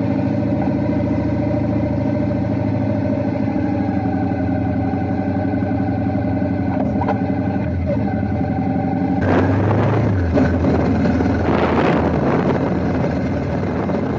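Suzuki V-Strom 650's V-twin engine idling steadily just after starting; about nine seconds in the sound turns rougher and noisier as the motorcycle rides off.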